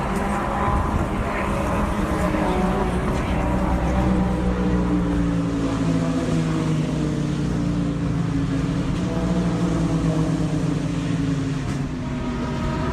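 Race car engines running on a circuit, several engine notes sliding slowly down in pitch together, with a new, higher engine note coming in near the end.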